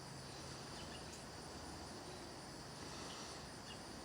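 Faint, steady background chorus of chirping insects.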